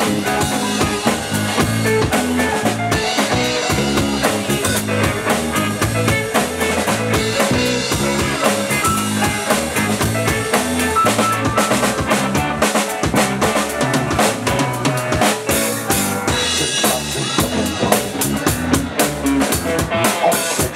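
Live band playing without vocals: drum kit to the fore, with electric bass and electric guitar.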